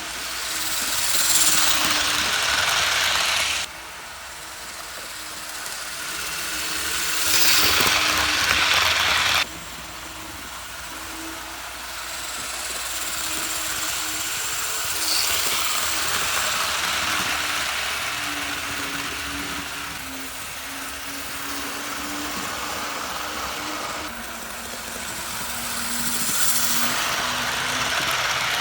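Tyco HO-scale GP-20 model locomotive with a 'Green Thing' motor chassis running on track: a steady motor buzz and wheel hiss that swells several times as it comes close, dropping off suddenly twice.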